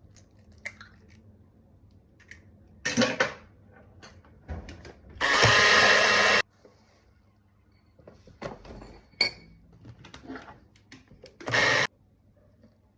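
Cake-making prep sounds: light taps and clinks of utensils, and a small electric kitchen appliance motor running steadily for about a second about five seconds in, then again briefly near the end.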